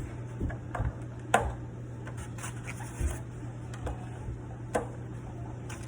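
Hands handling small kitchen items: scattered soft clicks and light knocks, the sharpest about one and a half seconds in, over a low steady hum.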